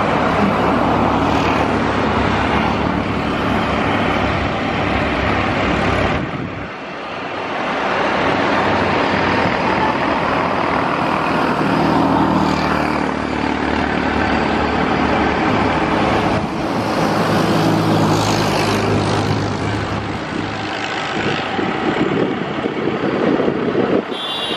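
De Havilland Canada Dash 8 Q400's two Pratt & Whitney PW150A turboprops running at taxi power: a steady propeller drone with a low hum under a rushing hiss, dipping briefly about six seconds in.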